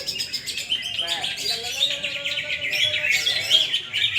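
Cucak hijau (green leafbirds) singing, a dense stream of rapid overlapping chirps and trills.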